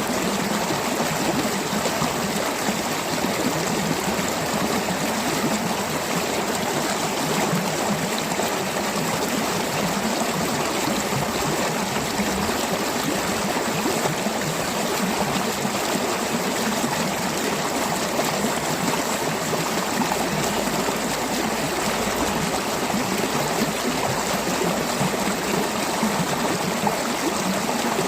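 Mountain stream flowing and gurgling over rocks: a steady rush of water that holds an even level throughout.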